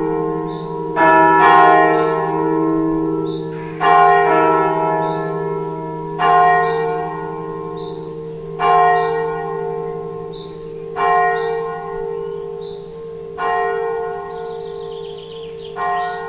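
Swinging bronze church bells, a 1705 G. Schimmel bell and 1972 Eijsbouts bells, tolling with a stroke about every two and a half seconds. A low hum rings on between strokes, and each stroke is weaker than the last as the peal dies away.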